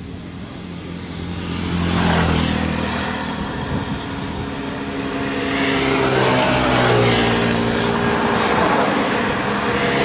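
Kubota DC-93 rice combine harvester's diesel engine running, growing louder over the first two seconds and then staying loud, its pitch shifting in the second half.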